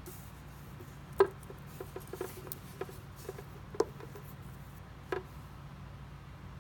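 Light clicks and taps from a wire fishing leader and an egg-shaped sinker being handled and set on a paper-covered surface, the loudest about a second in, over a steady low hum.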